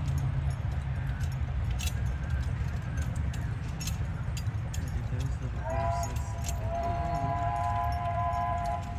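Harness hardware and trace chains jingling and clinking as a team of two draft horses pulls a walking plow, over a steady low rumble. About five and a half seconds in, a chord of several steady whistle tones starts with a slight upward slide and holds to the end.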